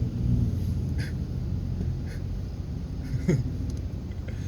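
Ford F-150 pickup's engine running low after a hard pull, with a short knock about a second in and a brief squeak and knock about three seconds in.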